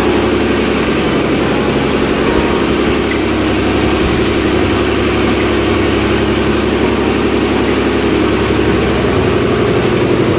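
Marble floor grinding-and-polishing machine running steadily as it works a wet Ziarat white marble floor: a continuous motor drone with grinding noise.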